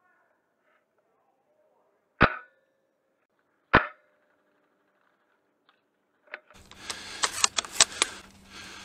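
Two sharp single shots from an A&K M24 spring-powered bolt-action airsoft sniper rifle, about a second and a half apart. Near the end a run of quick clicks and knocks comes in over a steady hiss.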